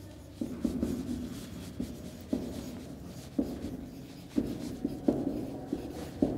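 Marker pen writing on a whiteboard: a run of short, irregular strokes and taps as letters are written out.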